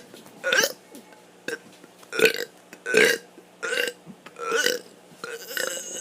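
A kid burping on purpose, a string of six or seven short burps in a row, about one every second.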